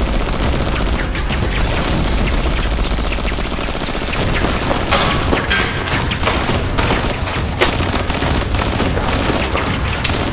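Dense gunfire sound effects: rapid, overlapping shots of automatic fire with no break, laid over background music.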